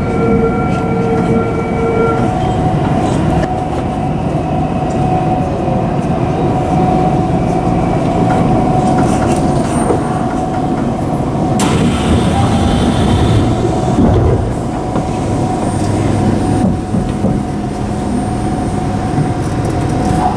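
Tokyu 3000 series electric train running on the rails with a steady whine over the rumble of wheels and track, slowing as it nears a station.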